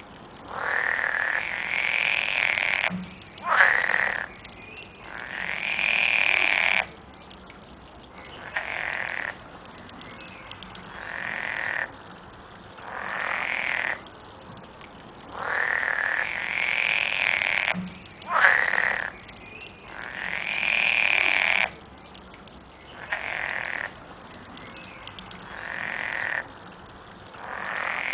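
Green frogs (water frogs, Pelophylax) croaking in a chorus of loud calls, each lasting one to two seconds and following every two seconds or so; the same run of calls seems to come round again about every 15 seconds.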